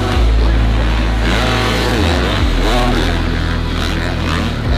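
Supercross dirt bikes racing, their engines revving up and falling back repeatedly as they ride the track.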